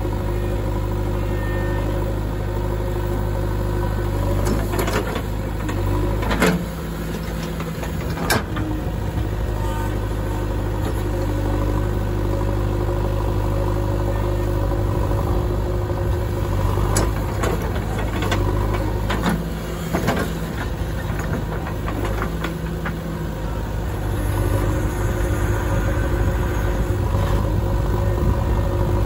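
JCB 3DX backhoe loader's four-cylinder diesel engine running steadily under hydraulic load while the backhoe arm digs and lifts soil. A handful of sharp clanks from the bucket and arm linkage; the engine grows a little louder near the end as the arm swings up.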